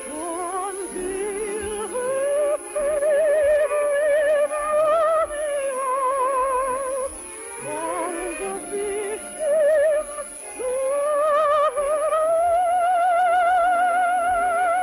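A soprano singing an operetta song in a trained classical style, with wide vibrato. She holds two long notes, the second one starting about two-thirds of the way through.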